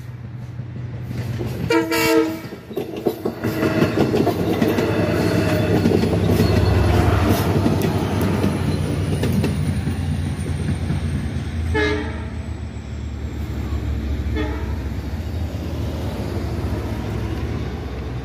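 LIRR two-car diesel push-pull train (DE30AC locomotive and C3 double-decker coach) sounding its horn about two seconds in, then passing with a loud rumble and clickety-clack of the wheels over the rails. The rumble fades slowly, with two more short horn blasts about twelve and fourteen seconds in, the second fainter.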